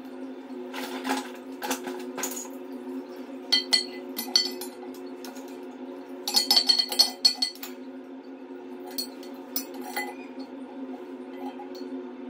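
Metal fittings and tools clinking in sharp clusters as the water connections behind a floor-mounted toilet are worked on. The densest, loudest run of clinks comes just past the middle, over a steady low hum.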